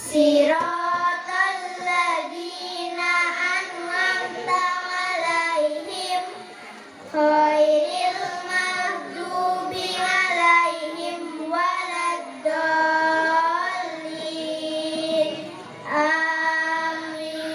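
Young girls' voices chanting a short surah of the Qur'an in melodic recitation, amplified through microphones, in long held phrases that glide in pitch, with brief pauses for breath between them.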